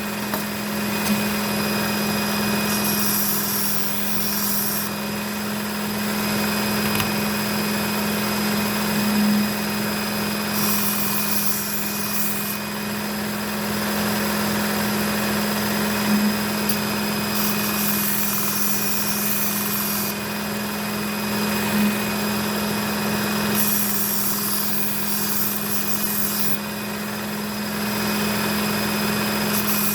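Work Sharp Ken Onion belt sharpener's motor running steadily, with a high grinding hiss swelling for about two seconds every six or seven seconds as a Shun Damascus kitchen knife is drawn across the moving abrasive belt.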